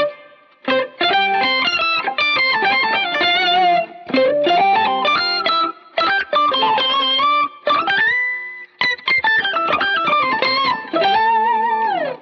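Electric guitar played through an EHX Nano POG polyphonic octave pedal and a Line 6 HX Stomp, in quick runs of notes broken by short pauses. There is a slide up into a held note near the middle and a sliding-down bend near the end.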